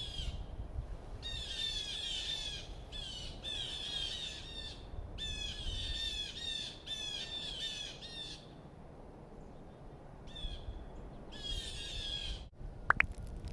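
A bird calling in quick runs of short, harsh notes, several bouts with pauses between them, thinning out after about two-thirds of the way through. A sharp click sounds near the end.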